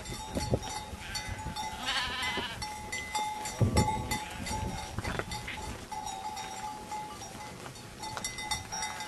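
A flock of sheep, with one sheep bleating a wavering call about two seconds in. A short low thud comes about halfway through.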